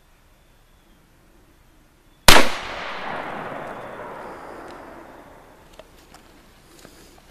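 A single shot from a Ruger Super Blackhawk .44 Magnum revolver with a 10.5-inch barrel about two seconds in: a sharp crack followed by a long echo that dies away over about three seconds.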